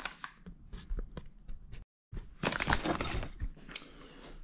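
Packaging handled as a diamond grinding wheel is unpacked. First come a few light clicks from the cardboard box, then after a brief dead gap about a second and a half of crinkly rustling from the plastic bag, fading out.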